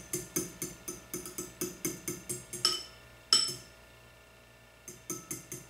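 Fork beating eggs in a ceramic bowl: rapid rhythmic clinking of metal on the bowl, about five strokes a second. It stops with two louder knocks about halfway, goes quiet for a second, then starts again near the end.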